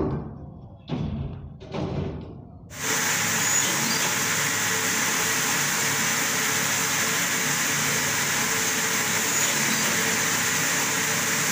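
Three dull thumps in the first three seconds, then steady mechanical running noise from a sole-cutting press machine, even and unchanging, with a faint hum.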